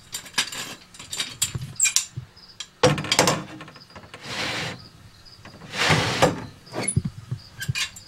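Sliding glass front of a reptile enclosure being handled: scraping runs in its track amid irregular clicks and knocks.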